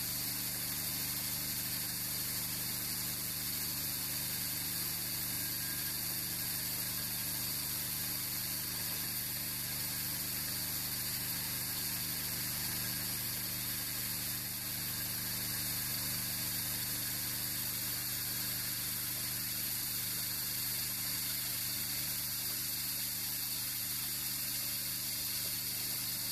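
Hycon HCD50-200 hydraulic core drill cutting a 200 mm hole through a stoneware pipe: a steady grinding hiss from the core bit over the even hum of the 13 hp hydraulic power pack, with no change in pitch or level.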